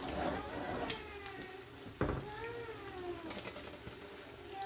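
Eggs frying in a nonstick pan with a faint, steady hissing sizzle. Over it come a few slow, gliding voice-like tones that rise and fall, and there is a sharp click about two seconds in.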